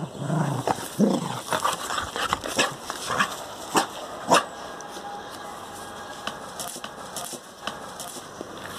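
Cocker spaniel growling in play during a tug game in about the first second, followed by a few sharp clicks and knocks.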